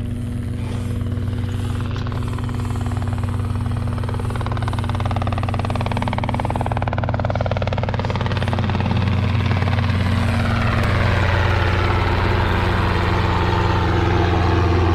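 Helicopter flying past low, a steady rotor and engine drone whose pitch slides down and back up as it passes, growing a little louder toward the end.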